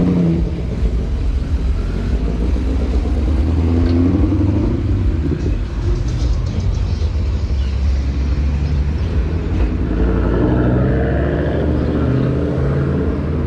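Bus engine running close by: a steady, deep rumble with a low engine drone.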